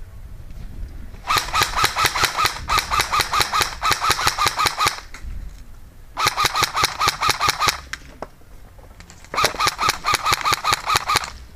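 Airsoft electric gun (M4-style AEG) firing full-auto in five bursts of about a second or more each: a rapid mechanical chatter over a motor whine. The first three bursts run almost back to back, and the last two come after short pauses.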